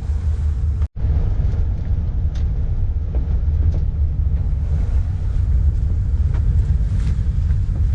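Steady low rumble of a vehicle on the move, with a momentary dropout about a second in.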